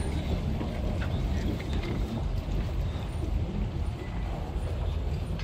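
Steady low rumble of an airport terminal concourse, heard from a moving walkway.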